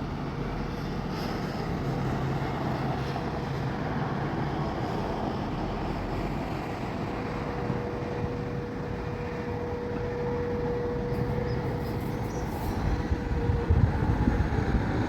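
Air raid siren sounding faintly over steady traffic noise, holding one steady pitch; it grows stronger about halfway through and drops away shortly before the end.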